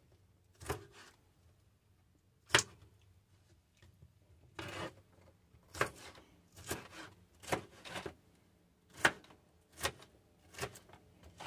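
Knife slicing green bell pepper into pieces on a plastic cutting board: about ten separate cuts, each ending in a short knock of the blade on the board, roughly one a second at an uneven pace.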